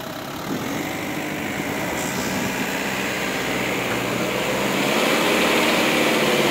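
Mahindra Bolero pickup's diesel engine revving under load while the stuck truck is hauled out of mud by a tow rope. The engine note rises about half a second in and then holds high, growing gradually louder.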